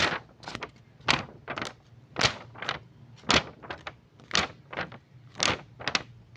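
A paper bag crinkling in and out in a steady rhythm as someone breathes into it, with a louder crinkle about once a second and a softer one between.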